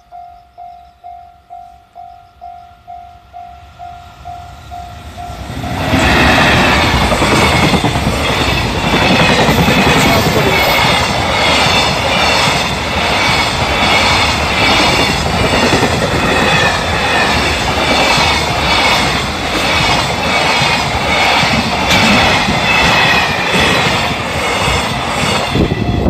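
Level-crossing warning bell ringing about twice a second. About six seconds in, a long container freight train hauled by an EF210 electric locomotive passes close by and drowns the bell out, its wagon wheels clattering in a steady rhythm.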